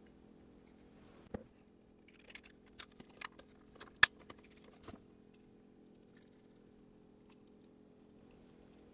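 Scattered light clicks and taps from a small electric sewing machine motor's parts as its housing is handled and fitted together, with one sharper click about four seconds in. A faint steady hum lies underneath.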